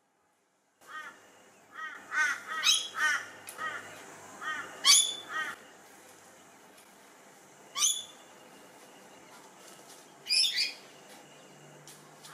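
Wild birds calling, starting about a second in: runs of short, harsh calls in quick succession, with a sharp sweeping call every two or three seconds.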